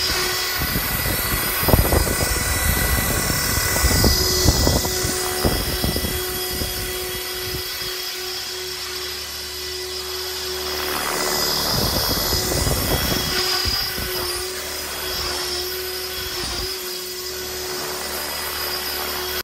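Blade 330 S electric RC helicopter flying aerobatic manoeuvres at about 1700 rpm headspeed: a steady whine from the motor and rotors with air rushing from the blades, swelling and fading in whooshes as it swings close, notably around four seconds in and again around eleven to thirteen seconds.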